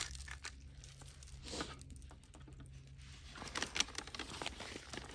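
Light ticking and tapping as a container of salt and herb seasoning is shaken over a raw bison ribeye, then pink butcher paper rustling and crinkling as it is folded over the meat, busier near the end.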